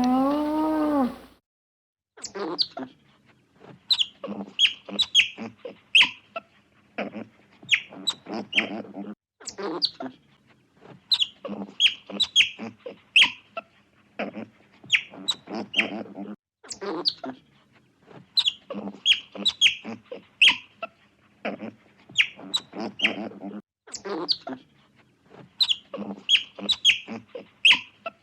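The tail of a cow's moo, then after a short gap, runs of short high-pitched chirps, each dropping in pitch, from an animal calling repeatedly.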